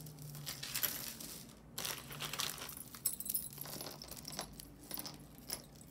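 Costume jewelry necklaces of metal chains and beads being handled, jingling and clinking in many small light rattles and clicks.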